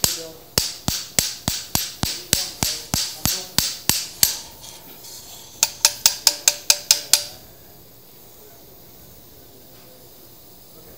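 Mallet striking the handle of a femoral broach, a quick run of sharp metal blows about four to five a second, driving the toothed broach down the femoral canal to shape it for the hip stem. After a pause of about a second comes a second, faster run of ringing blows, which stops about seven seconds in.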